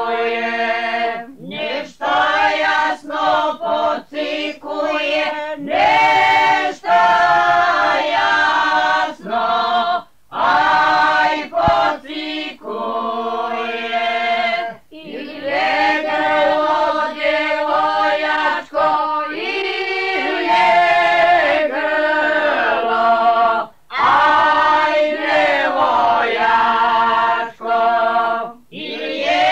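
Vocal group singing a traditional Slavonian folk song unaccompanied, in long held notes, with brief breaks for breath every few seconds.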